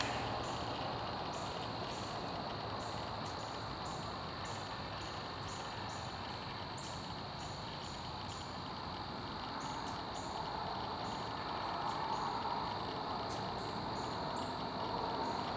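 Crickets chirping in short high pulses, about two a second, over a steady background hiss.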